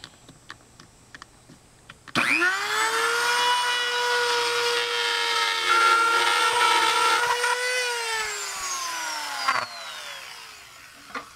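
Sears rotary tool fitted with a Dremel drywall-cutting bit, cutting through drywall: after a few faint clicks, the motor whines up to full speed about two seconds in and runs at a steady high pitch with a gritty hiss from the cut. Past the middle the whine falls in pitch and fades as the tool winds down.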